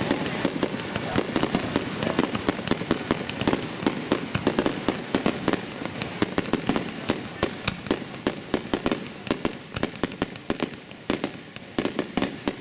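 Aerial fireworks display: a dense, continuous barrage of bangs and crackles from shells bursting overhead, several sharp reports a second. The rumble underneath eases near the end while the separate bangs go on.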